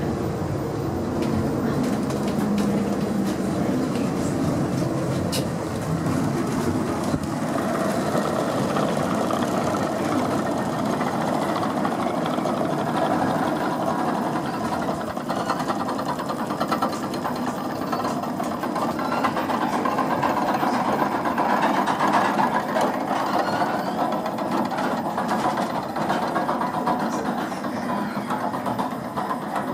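A Trieste–Opicina tram car running along its steep hillside track, heard from inside the car: a steady rolling rumble and rattle with a constant hum.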